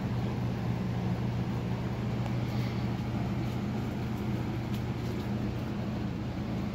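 Encon Monarch 52-inch ceiling fan running, its motor giving a steady low hum over a soft rush of moving air.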